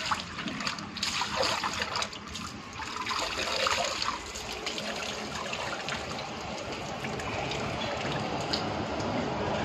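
Water splashing in a plastic tub as a rooster is washed and lifted out, with water streaming and dripping off its soaked feathers. After about four seconds the splashing gives way to a steadier trickling.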